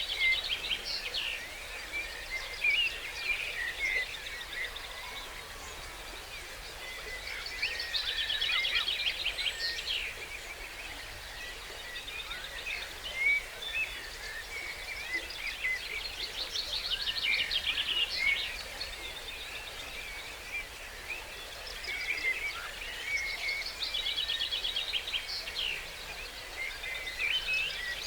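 Dawn chorus of several songbirds singing over a steady background hiss. One bird repeats a fast, trilling song phrase of about two to three seconds roughly every seven or eight seconds, with shorter chirps and calls from others in between.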